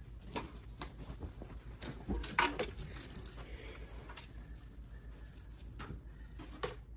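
Light clicks and taps of small plastic and metal computer parts and cable connectors being handled, about eight scattered knocks with the loudest a little over two seconds in, over a steady low hum.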